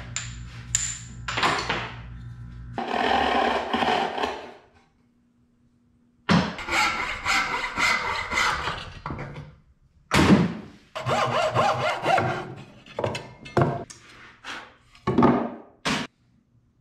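Hand-tool woodworking: a few knocks from a wooden mallet, then a wooden bow saw rasping through a board in rapid back-and-forth strokes, followed by a run of separate knocks and short saw strokes, ending in one sharp knock near the end.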